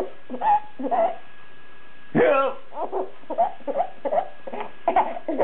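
A man's fake hiccup noises, each followed by a baby's bursts of laughter.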